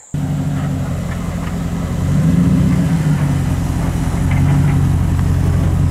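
Chevrolet Silverado pickup's engine running steadily, getting louder about two seconds in.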